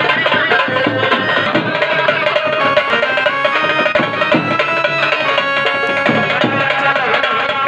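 Indian folk dance music with drums and percussion playing a steady beat.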